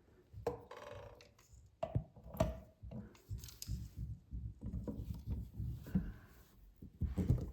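Faucet repair parts being handled and worked into place: scattered small clicks, taps and scrapes at an irregular pace.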